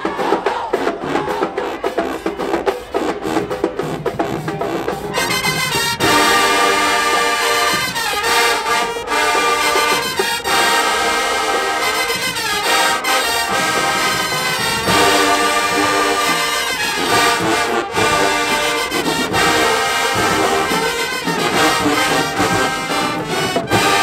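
Marching band playing loud: a few seconds of mostly drumming, then the full brass section comes in about six seconds in, with sousaphones, trumpets and trombones playing held chords and several falling slides.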